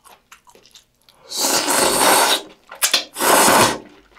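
Udon noodles slurped in two long pulls about a second apart, with a few short wet clicks between them.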